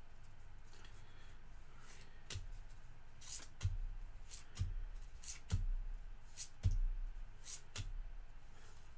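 Trading cards being handled and sorted by hand: a run of about six soft taps and short card rustles, roughly one a second, beginning about two seconds in.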